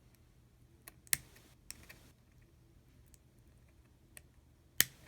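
A few small, sharp clicks of a pointed tool prying at the plastic key mechanism under a removed MacBook keyboard key. The loudest click comes about a second in and another near the end.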